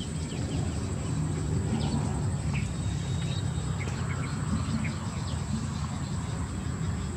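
Outdoor wetland ambience: scattered short bird chirps over a steady, thin, high insect drone, with a constant low rumble underneath.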